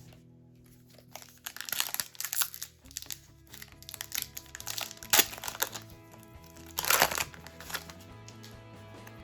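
Foil booster-pack wrapper crinkling in several bursts as it is handled and opened, over steady background music.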